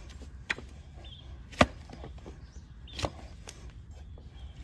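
Large hoof-trimming blade chopping down through a donkey's overgrown, decayed hoof horn onto a wooden block: four sharp chops, the loudest about a third of the way in.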